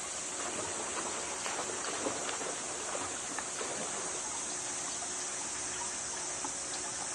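Steady outdoor background hiss, with a few faint clicks about one to three seconds in.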